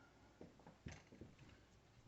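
Near silence with a few faint clicks and knocks, the sharpest about a second in.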